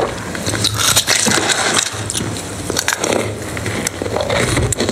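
Close-miked crunching as a hard, brittle purple treat is bitten and chewed, many sharp cracks in quick, uneven succession over a low steady hum.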